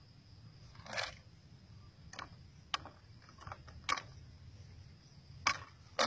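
Scattered sharp clicks and light taps of a plastic-bottle bird trap being handled and set on dry ground, about six of them with the first a little longer, over a faint steady high tone.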